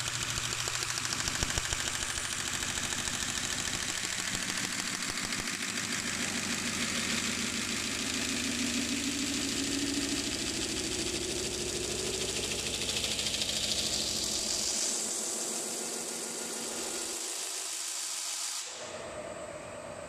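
CNC metal spinning machine running, its roller pressing a spinning sheet-metal blank over the mandrel to form a dish-shaped antenna reflector: a steady whir and hiss of metal working on metal. A tone rises in pitch through the middle, and the low hum drops away and the sound gets quieter near the end.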